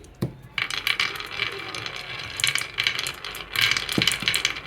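Marbles rolling and clattering down a wooden marble-run track: a dense, rapid run of small clicks and rattles with a louder knock just after the start and another near the end.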